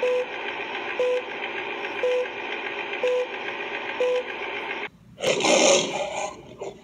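Film-leader countdown: a steady, crackly old-film hiss with a short beep once a second, five beeps in all. It cuts off about five seconds in, and the MGM logo lion roars, the loudest sound, fading out near the end.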